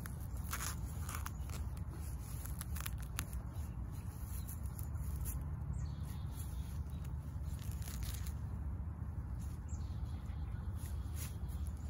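Gloved hands pulling grass and weeds out of the soil by the roots: rustling of blades and the crackle of roots tearing loose, in irregular snatches, over a steady low rumble.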